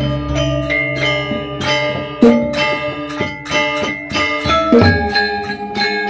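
Balinese gamelan playing: bronze metallophones ring out in quick struck notes, with deep booming strokes at the start and again about five seconds in.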